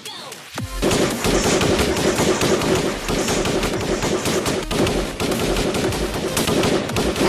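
Rapid automatic gunfire, a fast continuous rattle of shots starting about a second in.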